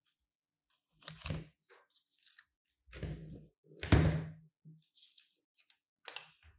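Scissors snipping through paper, with crisp crinkling as the sheet is handled, in a few separate bursts. The loudest sound is a thump about four seconds in as the hand comes down on the wooden table.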